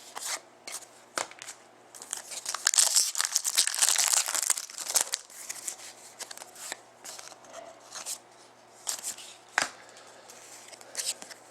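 A trading-card pack's wrapper being torn open and crinkled, a dense burst of tearing and crackling for about two and a half seconds a few seconds in, with scattered light clicks and rustles before and after.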